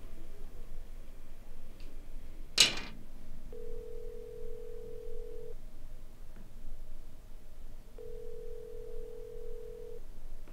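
Telephone ringback tone: two steady beeps, each about two seconds long, with a gap between them, as the called line rings out unanswered. About two and a half seconds in there is one brief, loud rushing noise.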